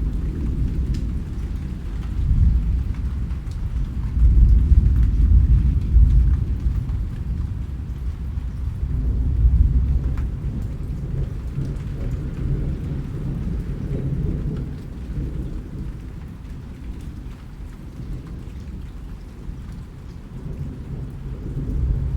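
Steady rain with a deep rolling rumble of thunder that swells a few seconds in and again near the middle, then eases off; faint patters of raindrops sit above it.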